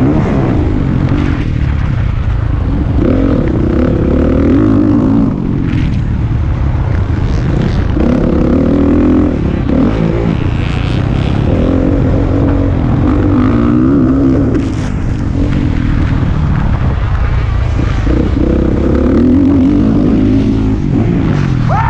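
Motocross dirt bike engine, heard close up from on board, revving up and down in repeated surges as the rider throttles on and off around the track. Near the end it revs up sharply.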